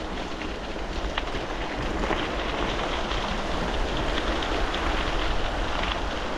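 Bicycle tyres rolling downhill over a loose gravel road: a steady crunch and rattle of stones under the wheels, with occasional sharp ticks of pebbles, over wind rumbling on the microphone.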